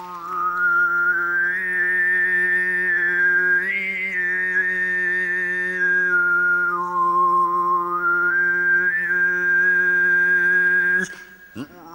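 A man's overtone singing: a steady low drone with a whistling, flute-like overtone above it that glides up, down and back up as a melody. He breaks off for a breath about eleven seconds in and starts again.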